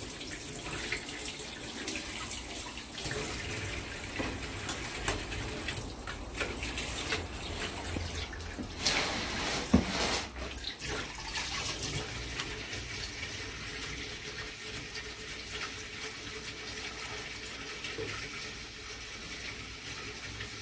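Kitchen tap running a thin stream into a stainless steel sink, with a few short splashes and knocks as a fish is rinsed and handled under the water, the loudest about nine to ten seconds in.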